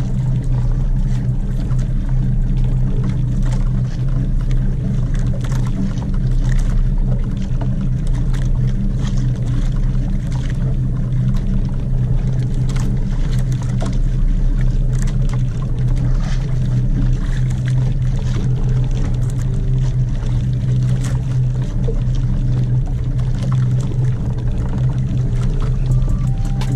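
A fishing boat's engine running steadily with a constant low hum.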